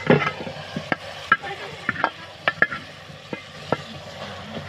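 Cluster beans sizzling in hot oil in a metal pot while a ladle stirs them. The ladle knocks and scrapes against the pot at irregular intervals, with a louder metal clatter right at the start.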